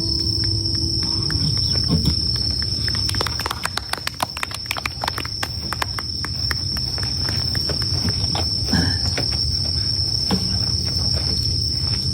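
Night insects trilling steadily and high. Over them, a campfire crackles, with a quick run of sharp pops in the middle.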